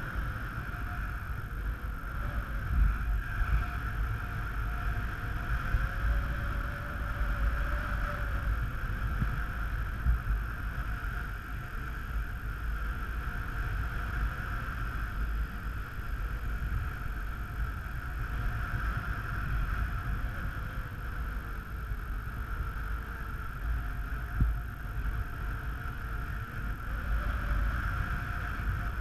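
Wind rushing and buffeting over the camera microphone as a paraglider flies: a steady low rumble with a band of hiss. A faint tone rises and falls gently at times.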